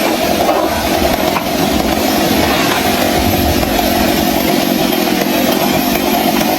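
Chainsaw running steadily at high throttle, cutting into wood.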